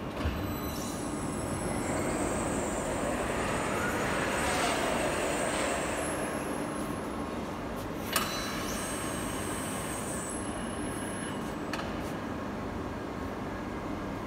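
Barbaric overhead gantry robot running along its rails, its drives giving a steady mechanical whir with thin high whines. A whine glides up and down a few seconds in, and there is a single sharp knock about eight seconds in.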